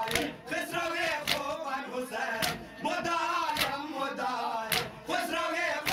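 Male voices chanting a Shia mourning lament (noha) together, with a sharp chest-beating slap (matam) on the beat about once a second.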